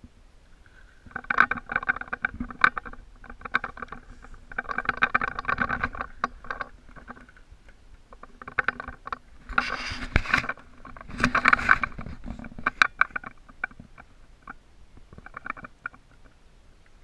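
Carp fishing reel's drag ratcheting in repeated bursts of rapid clicking, a second or so each, as the hooked fish pulls line off against the clutch.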